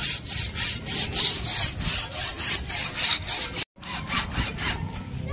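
Hand sawing: rapid back-and-forth saw strokes, about three a second. The sound cuts out for a moment a little past halfway, then the strokes resume somewhat quieter.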